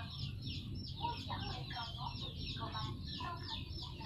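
Domestic fowl clucking, with quick high chirps repeating about five or six times a second over a low steady rumble.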